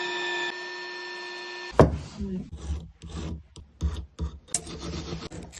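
A steady pitched whine for the first second and a half, cut off by a sharp click, then irregular rasping strokes of a jeweller's file worked against the metal of a ring.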